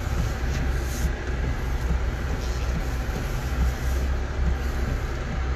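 Steady low drone of a moving car's engine and tyres heard inside the cabin, with a hiss of tyres on wet pavement.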